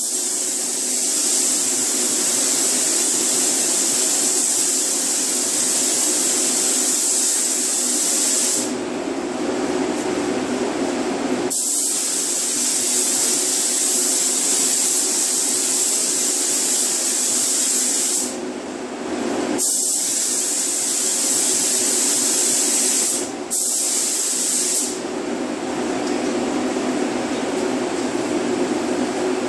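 Automotive paint spray gun spraying base coat in long hissing passes several seconds each, going quiet between passes as the trigger is released, with the spraying stopping about 25 seconds in. A steady low hum runs underneath throughout.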